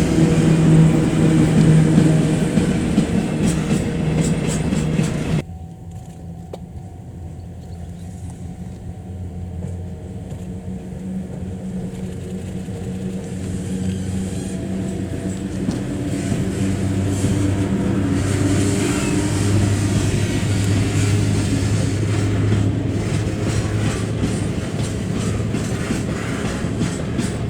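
Model freight train hauled by ED71 electric locomotives running on the track, with a steady motor hum and wheels clattering over the rail joints. Loud at first, it drops abruptly about five seconds in, then slowly grows louder again.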